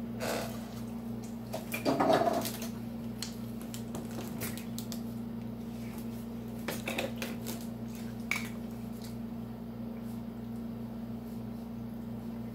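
Clatter of tableware, strongest about two seconds in, then scattered clicks and crackles as a plastic water bottle is handled and its cap opened. A steady low hum runs underneath.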